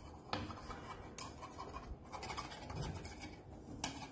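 Metal spoon scraping around the rim of a non-stick pan as it presses and smooths the edges of a barley harcha dough, with a few light clicks of metal on the pan.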